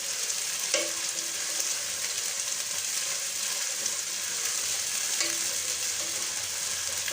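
Ginger-garlic paste frying with onions and whole spices in hot soybean oil in a pan, a steady sizzle while it is stirred, with a couple of light clinks of the spoon against the pan.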